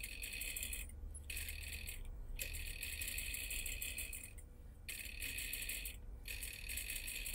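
Sewing machine stitching in five short runs with brief stops between, a fast even clatter of the needle as it sews a sleeve into a jacket through layers of bouclé fabric and synthetic wadding.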